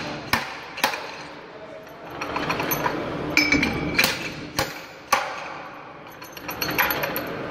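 Sharp metal-on-metal knocks as a driver tool is hammered against the input shaft of an Eaton heavy-duty truck transmission to seat its bearing: two strikes in the first second, three more a few seconds later, with lighter clinking and scraping of steel parts between.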